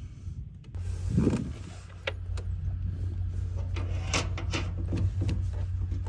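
Light metallic clicks and taps of a brass flare nut and copper refrigerant line being handled and threaded by hand onto a mini-split's service valve, over a steady low hum that starts about a second in.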